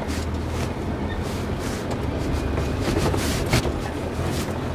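Off-road vehicle's engine running steadily at low speed, with intermittent rattles and knocks from the vehicle lurching over rough ground, including a sharper knock about three and a half seconds in.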